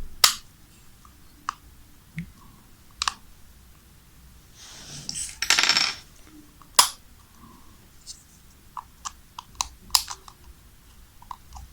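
Scattered small, sharp plastic clicks and taps as the clips of a MagSafe power adapter's housing are handled and fitted back, with a short rustling handling noise about five seconds in.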